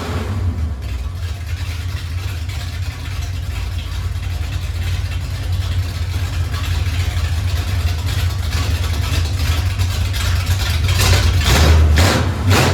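Freshly rebuilt Ford 390 FE big-block V8 running with a steady low drone, with a few short louder bursts near the end.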